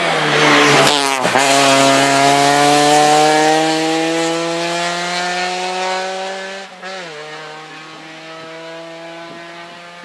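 Opel Astra rally car's engine at full throttle, pitch climbing steadily as it pulls away. There is a brief lift just over a second in and a quick upshift about seven seconds in, after which the sound fades as the car goes away.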